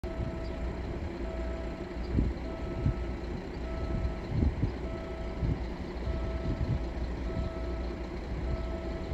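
Electronic level-crossing warning signal sounding a repeating beep, about one tone a second, as it warns of the approaching train. A low rumble with irregular thumps runs underneath.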